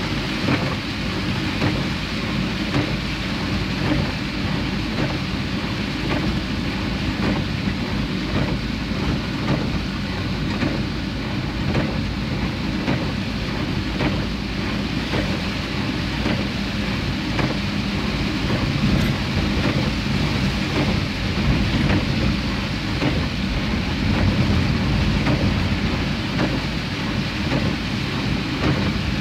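Heavy rain heard from a moving vehicle: a steady rain hiss over a low rumble of the vehicle and its tyres on the wet road, dotted with many small raindrop taps.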